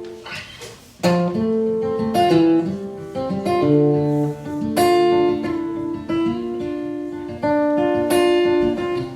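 Acoustic guitar playing a song's instrumental intro: chords picked and strummed, with a fresh chord struck every second or two and left ringing.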